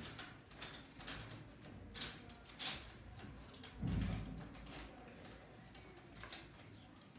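Faint scattered clicks and rustles of a child rummaging in a pencil case and handling coloured pencils at a desk, with one dull thump about four seconds in.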